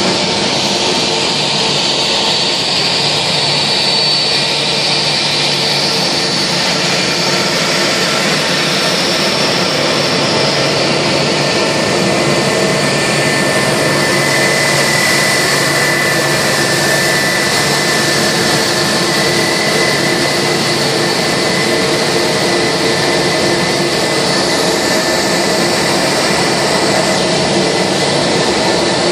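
Airbus A320 jet engines running at taxi power as the airliner rolls slowly in: a loud, steady whine over a broad rush, without change.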